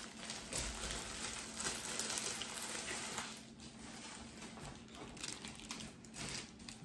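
Clear plastic bag crinkling and rustling as a jacket is pulled out of it, busiest in the first three seconds, then fainter handling of the plastic and fabric.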